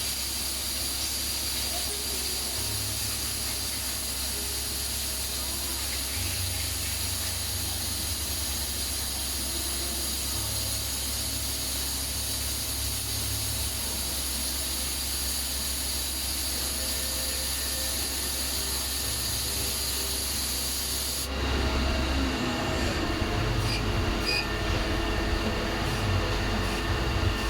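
CNC machine running a dart-barrel machining cycle: a steady high hiss over a low hum. About 21 seconds in the hiss stops and a lower, busier machining sound takes over, with small irregular ticks.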